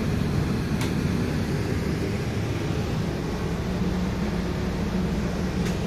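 Steady low hum of an RV's air conditioning running, with two faint clicks, about a second in and near the end.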